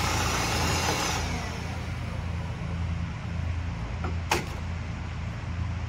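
Steady low mechanical hum with a slow pulse. A broad hiss fades out about a second in, and there is one sharp click about four seconds in.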